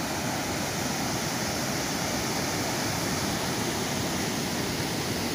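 Steady rush of whitewater pouring over Swallow Falls on the Youghiogheny River, the river running high after recent rain.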